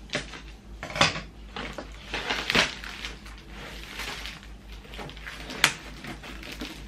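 A large picture frame being handled on a wooden floor: its clear protective plastic film rustles as it is peeled off, with a few sharp knocks and clicks from the frame, the crispest click late on.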